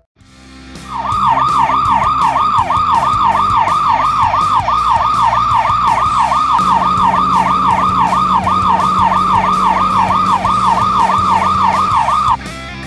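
Electronic emergency-vehicle siren sweeping rapidly up and down, about two and a half sweeps a second, over background music. A low steady hum joins about halfway through, and the siren cuts off suddenly shortly before the end.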